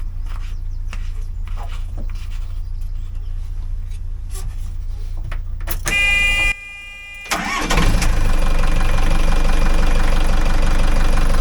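A short, high warning buzzer sounds about six seconds in. Then the narrowboat's Shire marine diesel engine starts and runs steadily on fresh oil after an oil and filter change, while its oil pressure builds.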